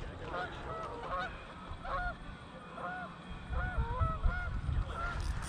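A flock of geese honking: many short, arched honks, repeating and overlapping throughout. A louder low rumble on the microphone comes in a little past halfway.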